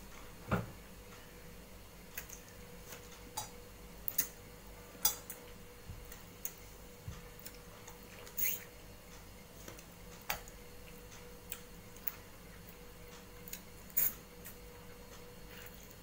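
Scattered wet mouth clicks and lip smacks, unevenly spaced about once a second, from a man chewing and licking his fingers while eating by hand, with one slightly longer sucking sound about halfway through. A faint steady hum runs underneath.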